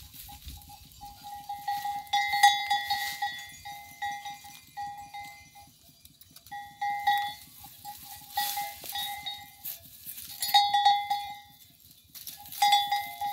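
Small metal bell on a goat's collar ringing in on-and-off stretches as the goat tugs at branches and browses leaves, with rustling of leaves and twigs.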